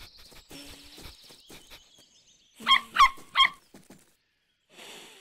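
Cartoon puppy sniffing along the ground, then three quick, loud yaps about three seconds in.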